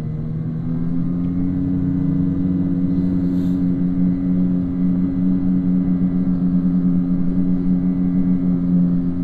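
Snowmobile engine pulling at steady high revs, rising a little about a second in and then holding an even pitch.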